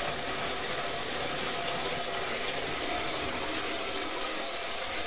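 Bathtub faucet running, water pouring steadily from the spout into the tub.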